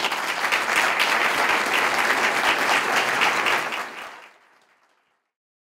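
Audience applauding, many hands clapping together, fading out after about four seconds.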